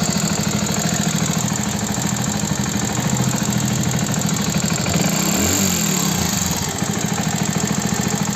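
Hero Passion Plus BS6's single-cylinder engine idling with a loud, rapid mechanical ticking clatter. The mechanic rules out the timing chain and takes the noise for loose rocker and tappet clearance.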